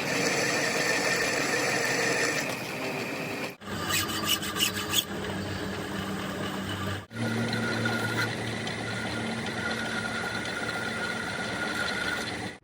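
Machinery running with a steady rasping, rubbing noise and a few sharp clicks about four to five seconds in, broken by two abrupt cuts.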